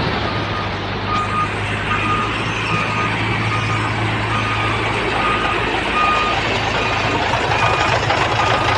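Truck engine running while a reversing alarm beeps steadily, with short high beeps a little under twice a second starting about a second in.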